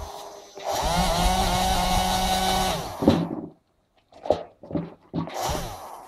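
Small DC electric motors of a model submarine's propeller and steering gear whirring: one run of about two seconds that rises in pitch as it spins up and then holds steady, then stops, followed by several short on-off bursts.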